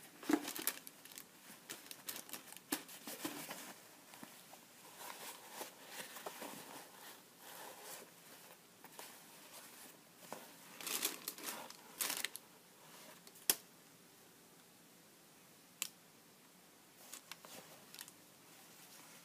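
Paper tissue rustling and crinkling as a canvas high-top sneaker is handled and turned over it, in irregular bursts with pauses between, and a couple of sharp clicks in the second half.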